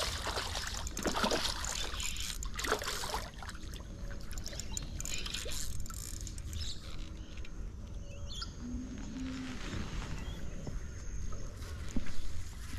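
Steady rush of floodwater with a hooked fish splashing at the surface in the first few seconds; a bird chirps briefly about eight seconds in.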